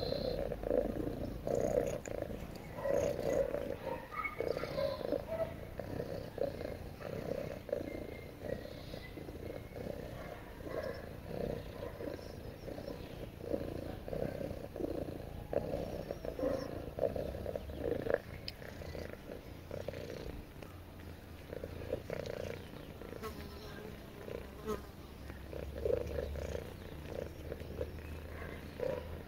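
Domestic cat purring in a steady pulsing rhythm while being stroked, a sign of contentment.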